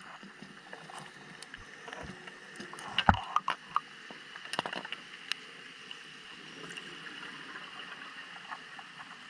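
Underwater ambience picked up through a camera housing on a deep dive: a steady hiss, with a cluster of sharp clicks and knocks about three to five seconds in, the loudest a thump about three seconds in.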